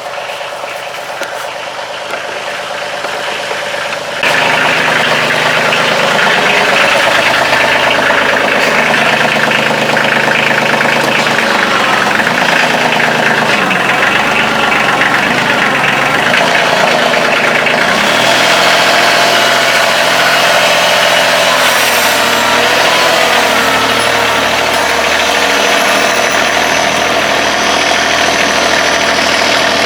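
Kioti CK2610 compact tractor's three-cylinder diesel engine running. It gets suddenly louder about four seconds in, and its pitch rises and falls a few times midway as the revs change.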